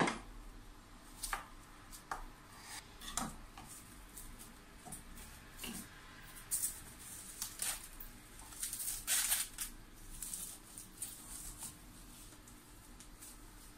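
Plastic cling film rustling and crinkling as it is handled and wrapped around a chicken roulade, in scattered short bursts with a few light clicks, busiest in the middle; a sharp click right at the start.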